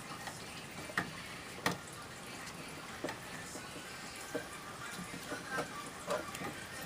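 Scattered light clicks and taps of small RC truck suspension parts (plastic A-arms, shocks, screws) being handled and fitted, over a steady hiss.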